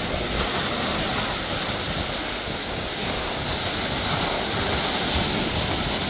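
Sea waves breaking and washing over rocks on the shore: a steady rush of surf with a low rumble underneath.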